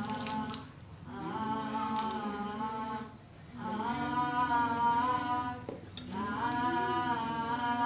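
A single voice singing or humming a slow, wordless tune with no accompaniment, in long held notes broken into four phrases by short pauses for breath.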